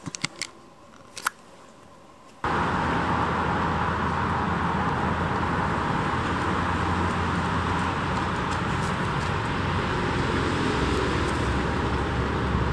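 A few light clicks in a quiet room, then an abrupt cut about two and a half seconds in to a steady rush of road traffic noise with a low rumble underneath.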